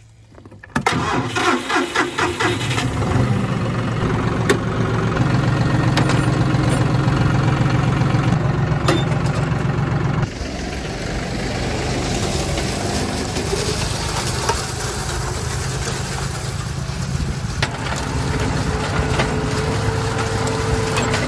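John Deere 5055E tractor's three-cylinder diesel engine cranked on the starter, catching about a second in and settling into a steady run. From about halfway it runs on while pulling a heavy disc harrow across the ground, and a steady whine comes in near the end.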